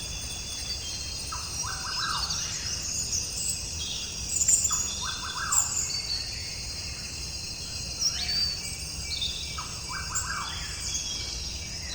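Birds chirping: short chirps that repeat every second or two, with higher twittering calls among them, over a steady low background noise.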